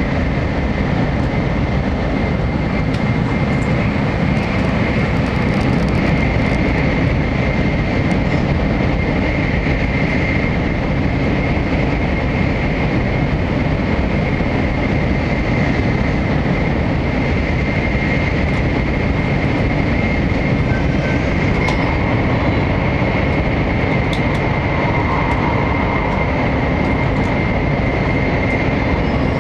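Shinkansen 700-series Hikari Rail Star running at speed, heard from inside the passenger cabin: a loud, steady rumble of running noise with a thin, steady whine high above it.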